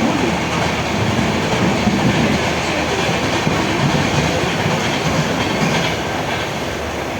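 Train running at speed: a loud, steady rumble with wheels clattering over the rail joints, easing off slightly near the end.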